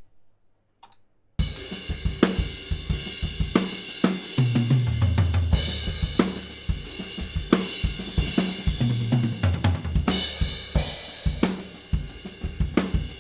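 A full acoustic drum kit playing a beat with kick, snare, hi-hat and cymbal crashes, heard only through a mid-side stereo microphone pair. It starts about a second and a half in.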